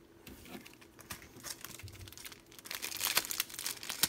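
Foil wrappers of small Pokémon trading-card booster packs crinkling as they are handled and shuffled together in the hands, the crinkling thickest about three seconds in.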